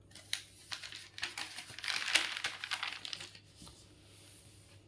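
Irregular crinkling and crackling, like something being rustled or crumpled, for about three seconds before it fades.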